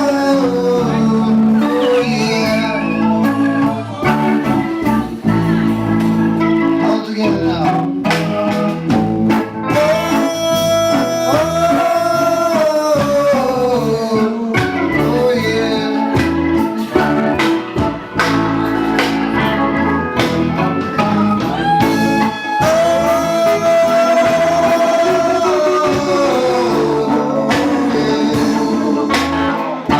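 Live reggae band playing, with a lead melody that holds long notes and slides down between them over a steady backing of instruments and drums.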